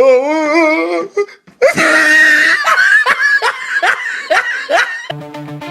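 A wavering, drawn-out voice, then loud laughter in a string of falling 'ha' sounds, with music starting near the end.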